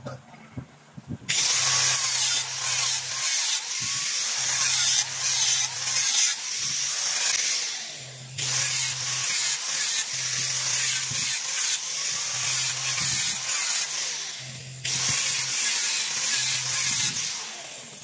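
Electric angle grinder cutting into tire rubber, with a harsh, gritty grinding noise. It runs in three long spells: it starts suddenly about a second in, eases off and comes back twice, and fades off near the end.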